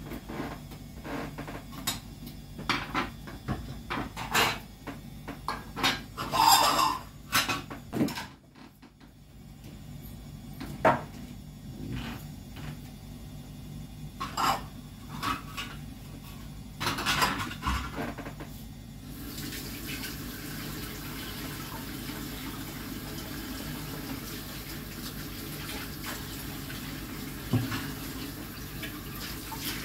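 Dishes and cutlery clattering as they are handled and set down, with a brief lull partway through, then a kitchen tap running steadily from about two-thirds of the way in.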